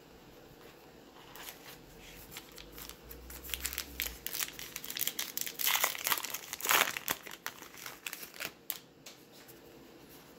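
Crinkly wrapper of a 2020 Topps Heritage baseball card pack being torn open and crumpled by hand, a dense crackling that starts about a second in, is loudest past the middle, and dies down near the end.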